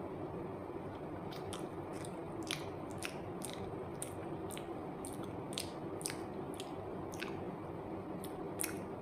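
Chewing a soft peeled banana close to the microphone: sharp wet mouth clicks and smacks, about two a second, over a steady background hiss.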